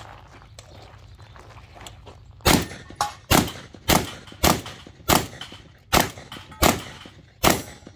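A string of nine gunshots, sharp cracks starting about two and a half seconds in and coming roughly every half to three-quarters of a second.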